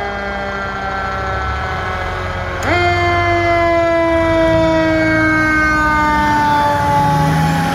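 A 2004 American LaFrance Eagle fire engine's siren pulling out on a call: its pitch is slowly winding down, is spun back up sharply a little past a third of the way in and gets louder, then falls slowly again. The truck's engine runs low underneath.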